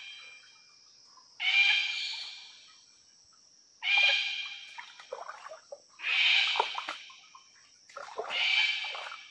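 Cockatoo screeching: four harsh, raspy calls about two seconds apart, each lasting about a second, over a faint steady high whine.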